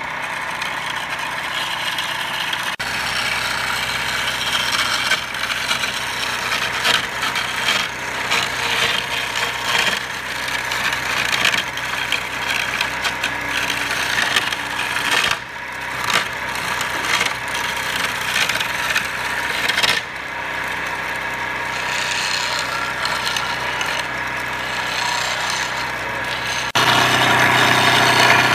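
Homemade wood lathe running with a steady motor hum while a turning tool scrapes the spinning wood. The sound changes abruptly several times.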